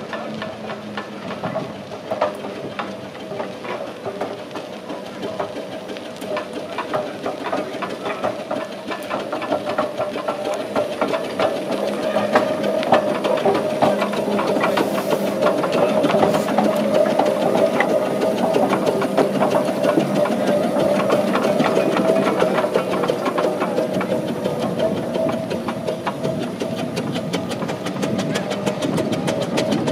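Steam road roller running as it drives past towing a living van: its engine clatters with fast even beats over a steady hum, with some steam hiss. It grows louder as it comes close about halfway through, then eases off a little.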